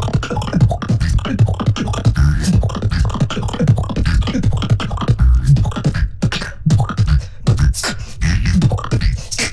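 Solo human beatboxing: a fast, dense run of mouth-made percussive hits over heavy bass tones, with no pause.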